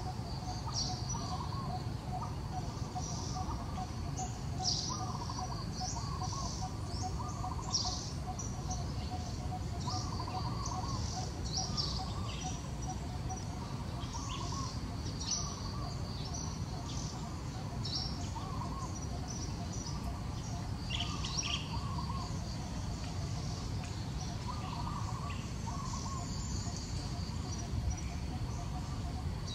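Wild birds chirping: many short, high chirps, with another short call repeating every second or two. Under them runs a steady, fast-pulsing drone and a low background rumble.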